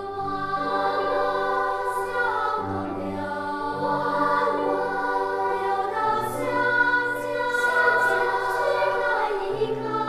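Background music: a choir singing slow, held chords over sustained low notes.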